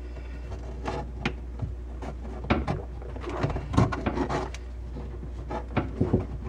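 Hands and 1/4-inch plastic tubing knocking, clicking and rubbing against the fittings and cabinet as the tube is pushed blind into a push-fit inlet on a reverse osmosis filter manifold; irregular small knocks, thickest in the middle, over a steady low hum.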